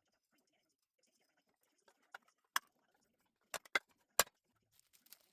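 A few sharp clicks and knocks, irregularly spaced and grouped around the middle, with quiet in between.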